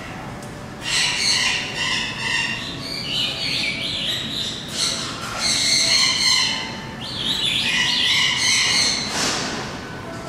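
Birds chattering and squawking in a fast, overlapping string of high calls, starting about a second in and easing off near the end.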